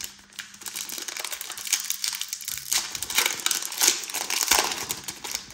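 Foil wrapper of a trading-card pack being torn open and crinkled by hand: irregular crackling, loudest through the middle seconds.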